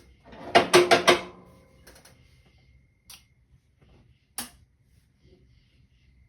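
A quick clatter of four or five hard knocks with a brief ringing tone, followed by two single clicks a second or so apart.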